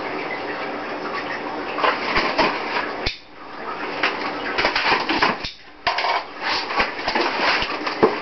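A cardboard shipping box being opened by hand: cardboard scraping, rustling and tearing, with scattered knocks. The sound drops off briefly twice.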